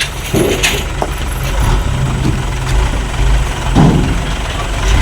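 Truck engine idling steadily with a low hum.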